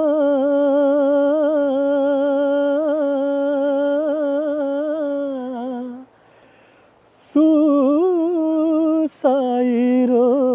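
A single voice singing unaccompanied, drawing out long held notes with a wavering vibrato. It stops about six seconds in, a sharp intake of breath comes just over a second later, and the singing resumes on another long note.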